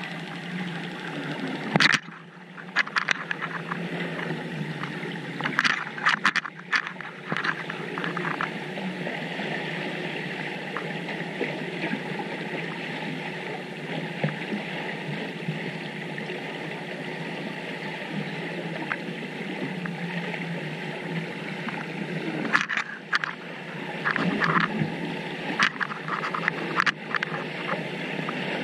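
Underwater sound picked up by a camera in a waterproof housing: a steady muffled rushing with a faint whine, broken by clusters of crackling, bubbling clicks about two seconds in, around six seconds in, and again near the end.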